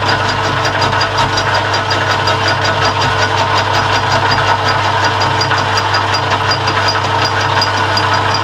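Metal lathe turning down a gearbox shaft: a steady motor and gear hum with cutting noise and a fast, even ticking.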